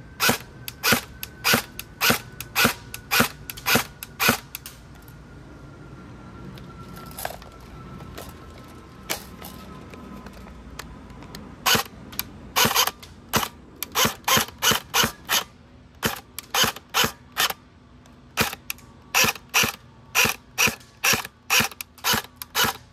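Electric airsoft SCAR-L rifle firing on semi-auto, each shot a short, sharp crack of the motor and gearbox cycling. Shots come about two a second, then stop for several seconds apart from two lone shots, then resume in a quick run of about two dozen. The shooter finds the motor has a lot of whine.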